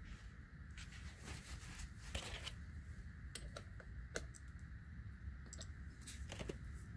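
Faint scattered clicks and brief rustles of hands handling a paper shop towel and the fitting on top of a small hydraulic spoiler cylinder, over a steady low background hum.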